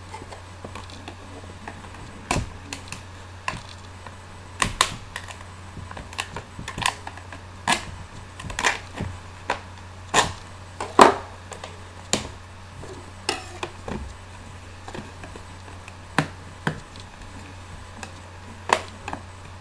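Irregular clicks, taps and knocks of a retail speaker box and its packaging being opened and handled, over a steady low hum.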